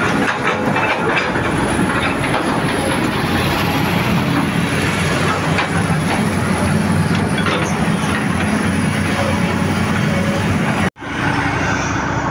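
Heavy diesel earthmoving machinery running steadily, a loud low rumble with a few clanks. The sound drops out for an instant near the end.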